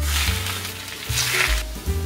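Shredded cabbage and egg mixture sizzling in hot oil in a square egg-roll pan, with a louder burst of sizzle about a second in, over background music with deep bass notes.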